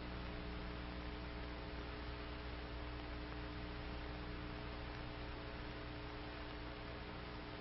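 Faint steady electrical hum with hiss underneath: the background noise of an old film soundtrack between lines of narration. No rifle sounds are heard.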